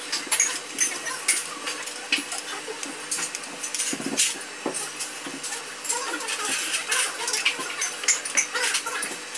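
Stainless steel serving pots and ladles clinking against steel thali plates and small katori bowls as curries are served: many quick, irregular metallic clinks.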